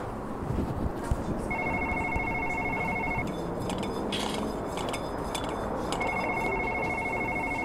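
Desk telephone ringing twice, each ring a trilling electronic tone about a second and a half long, over a steady background hum, with a few faint clicks between the rings.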